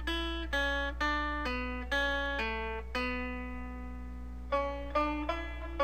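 Background music of a guitar picking single notes, about two a second, each ringing and fading. In the middle one note is held for over a second, then quicker notes follow. A steady low hum runs underneath.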